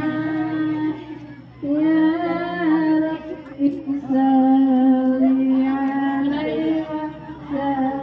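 A song with a woman's voice singing long, held notes in phrases, with short pauses between them.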